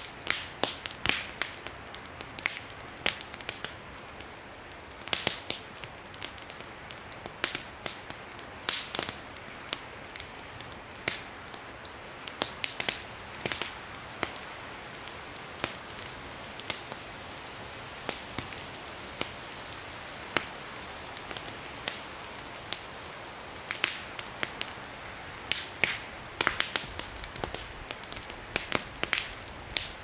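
Wood campfire crackling, with irregular sharp pops and snaps over a steady background hiss.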